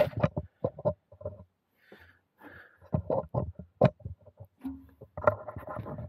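Handling noise: a run of irregular knocks and taps, with a couple of brief rubbing sounds about two seconds in, as a bicycle in a workstand is handled and wiped.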